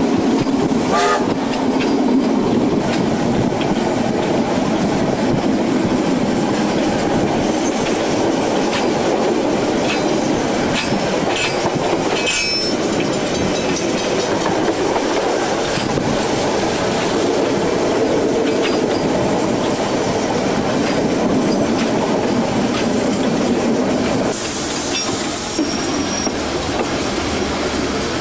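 Train running along the track, wheels clicking over the rail joints, with a couple of brief clanks. Near the end the sound changes: the rumble drops and a hiss comes in.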